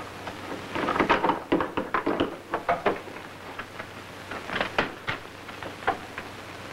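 Keys and lock of a metal vault door being worked: a run of short metallic clicks and rattles, with a second, shorter cluster about four and a half seconds in as the handle is turned.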